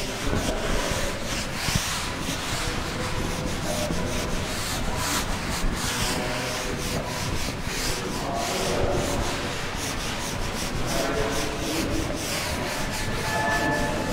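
Chalkboard duster rubbed back and forth across a blackboard, wiping off chalk writing in repeated scrubbing strokes.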